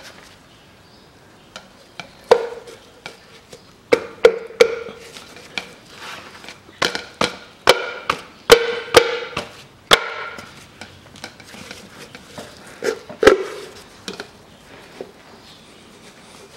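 A new rubber steering rack boot, sprayed with silicone, is worked by hand onto the tie rod. It gives a string of sharp clicks and knocks with a short metallic ringing, thickest about seven to ten seconds in, with some squeaks of rubber on metal.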